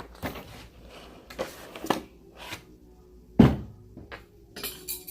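Handling noises from slime-making materials: a string of short rustles and clicks, with one louder thump about three and a half seconds in.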